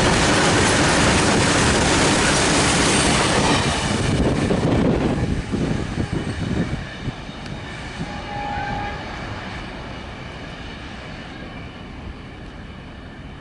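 BCNA covered freight wagons rolling past on the rails with a loud clatter of wheels. After about four seconds it drops away through a few clanks as the train recedes, leaving a quieter, fading rumble.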